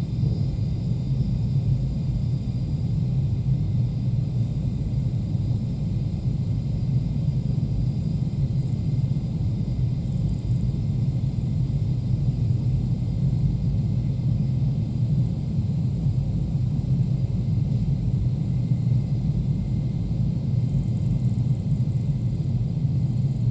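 Seafloor microseisms recorded by an ocean-bottom seismometer and sped up 360 times into hearing range: a steady, deep rumbling noise of the seabed's constant motion under ocean waves.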